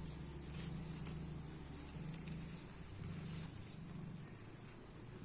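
Insects, crickets among them, chirring steadily in a high, hissing chorus, with a couple of faint clicks in the first second.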